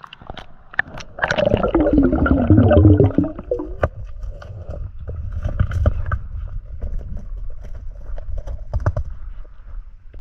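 Muffled water noise with a low rumble and gurgling, many sharp clicks and knocks, and a wavering pitched sound between about one and four seconds in, as heard from under the river's surface during a spearfishing dive.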